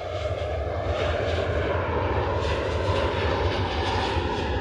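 Jet engines of a P-8 Poseidon running at high power as the aircraft rolls down the runway: a loud steady roar that grows a little after the start, with a whine that slowly falls in pitch in the second half.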